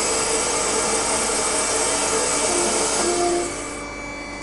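MEP Shark 332 NC evo automatic bandsaw cutting through metal stock: a steady, loud hiss of the blade in the cut. The noise drops away about four seconds in, leaving the machine's quieter running.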